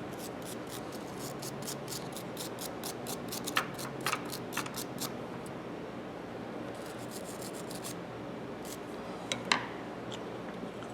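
Hand-cleaning the small steel parts of a disassembled ratchet: a run of quick scrubbing strokes, about four or five a second, then a shorter run later. Sharp metal clicks come as parts are handled, the loudest one near the end.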